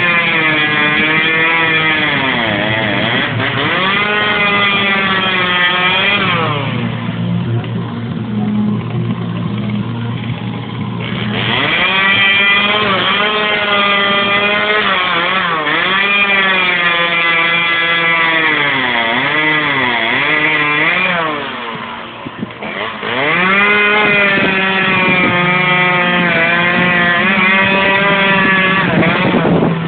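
Two-stroke chainsaw carving wood: the engine revs up and sags again and again as the bar bites and is eased off. Twice it drops back to a steady idle for a few seconds, once about seven seconds in and again a little past twenty seconds.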